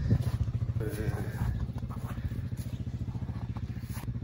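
Moped engine idling steadily with an even, rapid putter.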